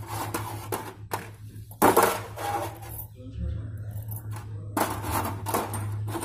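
Hydraulic PTO pump's metal parts clinking and scraping as they are handled on a metal tray, in a few irregular knocks, the loudest about two seconds in, over a steady low hum.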